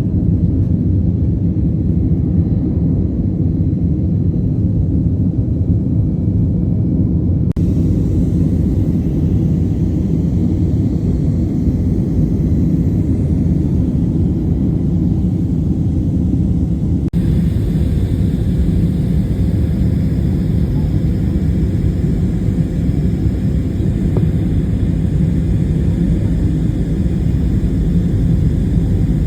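Loud, steady low rumble with a hiss above it, like vehicle or engine noise. The hiss shifts abruptly twice, about seven and seventeen seconds in.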